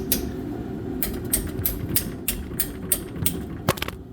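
A quick run of sharp metal clicks, about three a second, as a cut-down Allen key works the bolts on a Corken propane pump, over a steady low hum.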